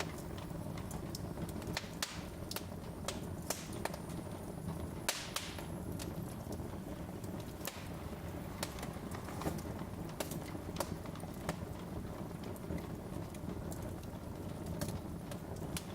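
Wood fire in a fireplace crackling: irregular sharp pops and snaps over a steady low rumble of burning logs, with one longer hissing pop about five seconds in.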